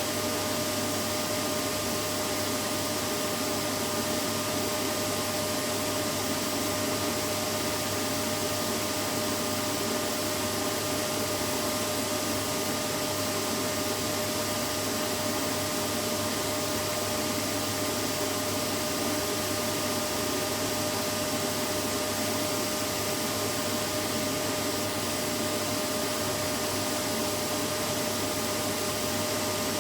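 Vacuum cleaner running steadily, a constant rushing hiss with a steady motor hum.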